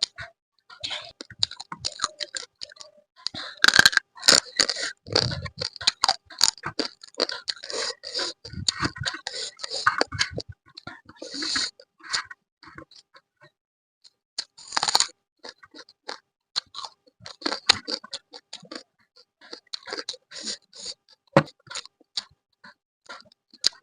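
Close-miked eating of crab curry: irregular crunching and chewing of crab shell and meat, with a few longer hissy sucking sounds in between.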